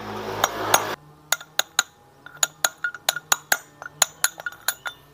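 Hammer blows on metal knocking a worn bearing out of a Honda Vario 125's rear drive. The bearing is the source of the rear wheel's growl. A louder scraping noise fills the first second, then come rapid sharp, ringing metallic taps, about three to four a second.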